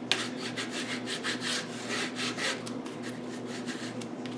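Bone folder rubbed quickly back and forth over patterned paper glued onto cardstock, a run of short scratchy rubbing strokes, pressing the freshly glued paper down flat.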